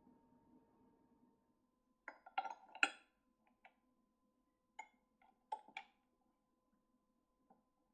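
Small hard objects clicking and clinking together as they are handled: a quick cluster of knocks about two to three seconds in, a few more around five to six seconds, then faint ticks, over a faint steady hum.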